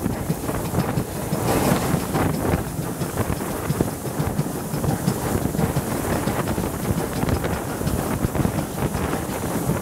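Wind noise on the microphone held out beside a moving train, over the running sound of LMS Black Five steam locomotive 45379 and its train. It is a steady, fluttering rush, heaviest in the low end.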